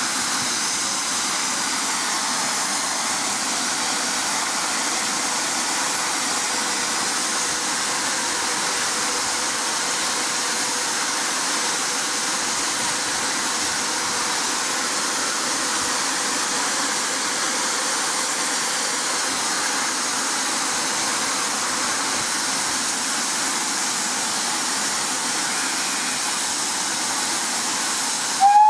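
Steady hiss of steam escaping from SECR C class 0-6-0 steam locomotive No. 592 as it stands waiting to depart. Its steam whistle starts right at the end.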